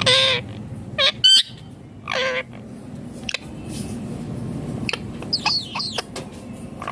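Indian ringneck parakeet calling: a loud harsh squawk at the start and another about two seconds in, quick short chirps around a second in, and a run of brief high squeaks a little after five seconds.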